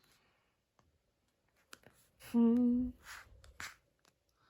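A voice humming one short, steady note for about half a second, partway through an otherwise quiet stretch, followed by a couple of soft breathy hisses.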